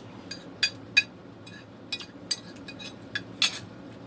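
Cutlery clinking and tapping against a dish while eating: about seven short sharp clicks, irregularly spaced.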